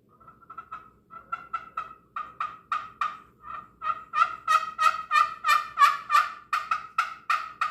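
Homemade lathe-turned wooden turkey call played in a long run of short, rhythmic yelps, about three or four a second. It starts faint and gets louder about halfway through.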